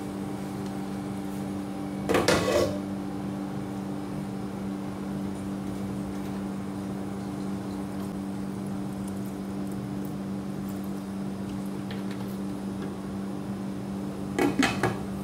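A steady low hum runs throughout. A glass pot lid clatters against the rim of a metal cooking pot as it is lifted off about two seconds in, and clatters again as it is set back on near the end.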